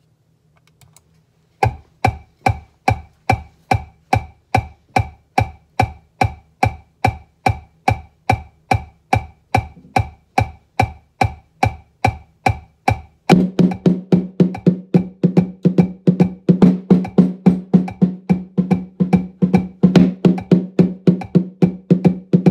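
A metronome clicking steadily, about two and a half clicks a second. About 13 seconds in, a marching bass drum struck with a mallet joins in, playing a fast pattern in time with the click.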